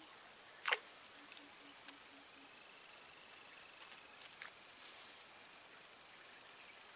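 Insects singing in a steady, high-pitched drone, with a second pulsing trill beneath it. A brief falling whistle sounds about a second in.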